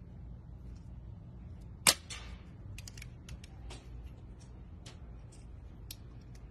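Multi-tool pliers snipping through a thin plastic rod with one sharp snap about two seconds in, followed by light clicks of the tool and the rod being handled.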